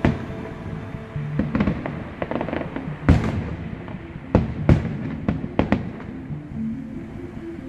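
Fireworks display: a string of sharp bangs from shells bursting overhead, about ten in all, irregularly spaced, the loudest about three seconds in. Music plays underneath throughout.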